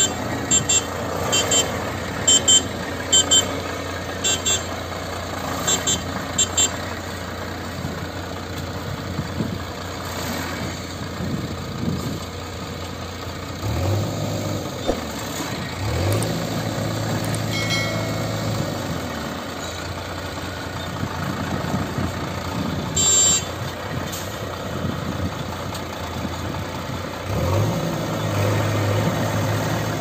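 Diesel tipper lorry's engine running as it manoeuvres, with its reversing alarm beeping in quick pairs for the first seven seconds or so. Later the engine note rises several times.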